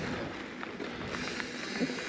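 Hardtail mountain bike riding along a dirt trail: steady tyre and wind noise with a few small clicks and rattles.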